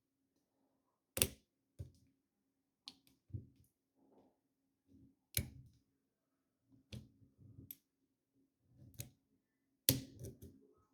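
Lock picks working in a Master Lock 1921D padlock: sharp metallic clicks every second or two, the loudest about a second in and near the end, between soft low knocks and scrapes as the pins are raked and set.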